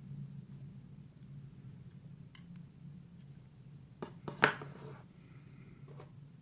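Small metallic clicks and taps from working the pins and springs out of a disassembled pin-tumbler lock, with one sharp, louder click about four and a half seconds in, over a low steady hum.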